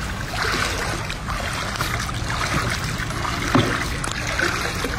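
Floodwater swishing and splashing as a broom is pulled through it as a paddle, driving a plastic tub along, with one sharp knock about three and a half seconds in.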